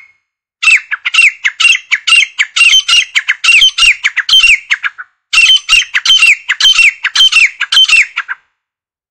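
Grey francolin calling: a loud, fast series of repeated notes, each falling in pitch, about two to three a second, in two bouts with a short break about halfway.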